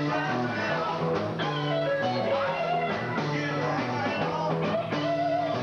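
Live rock band playing, with electric guitar over bass and drums, and held, bending guitar notes.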